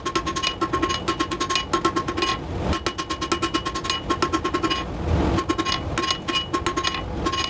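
Hammer blows on hot steel bar over an anvil, drawing the flat bar out to a taper: quick, even strikes at about six a second, each leaving a bright metallic ring. The hammering comes in three runs with short breaks about a third and two thirds of the way through.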